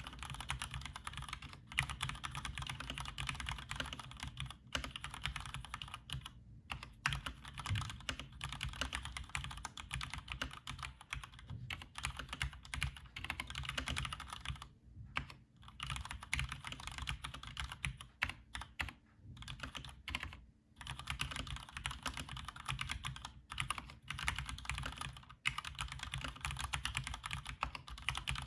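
Cherry G80-3000S tenkeyless mechanical keyboard being typed on steadily, a rapid run of key clicks and bottoming-out clacks with short pauses now and then.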